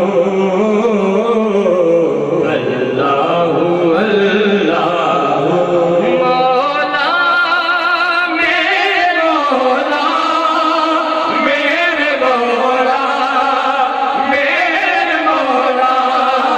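Men chanting dhikr together into microphones, the voices held in long, wavering devotional notes. The melody climbs higher about halfway through.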